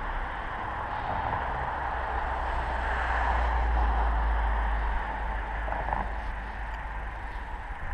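Wind buffeting the camera's microphone: a low rumble that swells louder through the middle and eases off, over a steady hiss.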